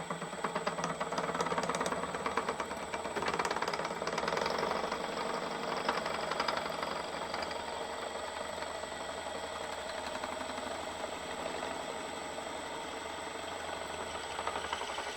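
Metalworking machine tool running while its cutter works through a part, with a rough, rapid rattling cutting noise over the first several seconds that then settles into a steadier run.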